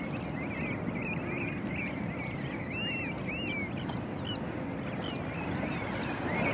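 A feeding flock of seabirds calling over and over in short, arched cries, over a steady wash of sea and wind.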